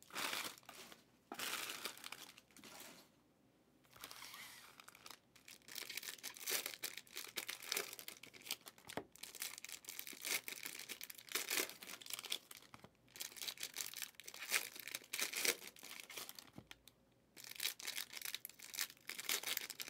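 Foil wrappers of 2023 Panini Prizm hobby card packs crinkling and tearing, with trading cards being handled and slid against each other, in irregular rustling bursts with short pauses.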